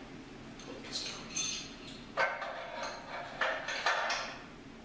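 Steel Bessey welding clamps being handled and set down on a steel fixture table: a few separate metal clanks and clatters, the sharpest about two seconds in.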